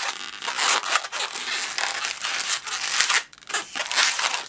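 A 260 latex modelling balloon rubbing and squeaking under the hands as it is bent and twisted into an ear loop, with a brief pause about three seconds in.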